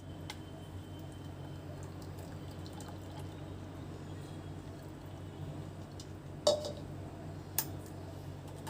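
Water being poured into a mixer-grinder jar to rinse it, with two short knocks near the end.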